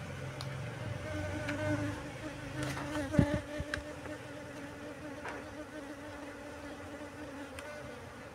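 A mass of honeybees buzzing, a steady hum. About three seconds in, a bump and a few clicks and rustles as hands work among the bees and the plastic lining.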